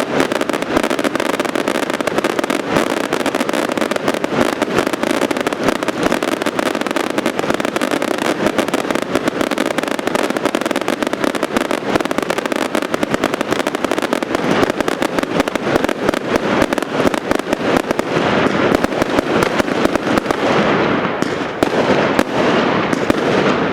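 Finale of 50 Jorge Kasjopeja fireworks set off together: a dense, continuous barrage of rapid bangs and crackling. It thins out to scattered cracks over the last few seconds.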